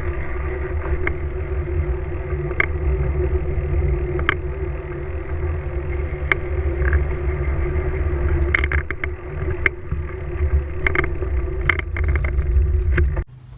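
Wind and road noise on a handlebar-mounted GoPro during a road bike ride: a steady heavy low rumble with scattered sharp clicks and rattles from bumps. It cuts off suddenly near the end.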